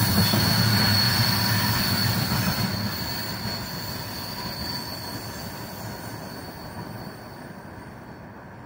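Freight train wagons rolling away around a curve: wheels rumbling on the rails with a high, steady flange squeal. Both fade as the tail of the train recedes, the squeal dying out about halfway through.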